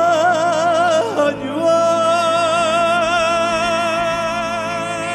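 A man singing long held notes with a wide vibrato, dipping in pitch about a second in and then holding one long note, over a sustained chord from the band in a live rock performance.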